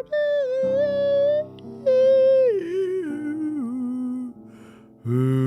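A woman singing the blues wordlessly, holding a wavering high note and then sliding down in a slow stepwise run, over sustained accompanying chords. A fuller, louder chord comes in near the end.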